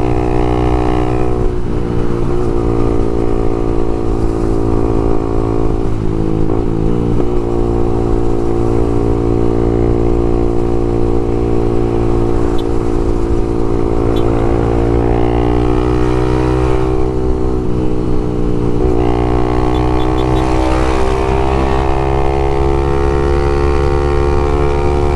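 Honda Twister 250's single-cylinder four-stroke engine through an open Leo Vince exhaust, running under way at a mostly steady engine speed. The note breaks briefly about six seconds in, and its pitch rises and falls a few times in the second half as the throttle changes.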